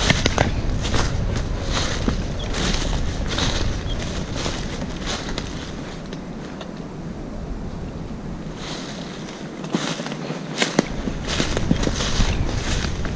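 Wind buffeting the microphone as a low rumble that dies down for a few seconds in the middle. Repeated short rustles and crackles come over it.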